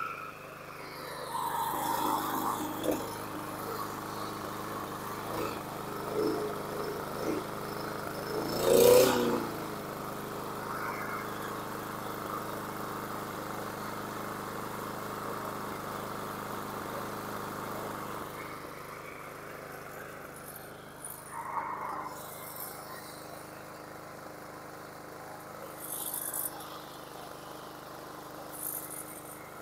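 Troy-Bilt TB200 mower's Briggs & Stratton 550e single-cylinder engine running steadily at a low idle. A loud sharp knock comes about nine seconds in.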